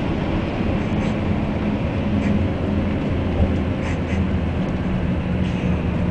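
Steady low engine hum and road rumble heard from inside a moving tour bus.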